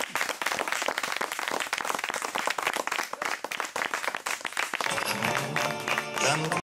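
Audience applauding with dense, fast clapping. About five seconds in, music with steady notes comes in under the applause. Everything cuts off abruptly near the end.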